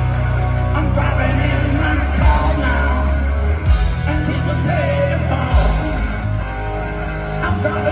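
Live rock band playing loudly: a lead singer over electric guitars, bass and drums, heard from among the audience.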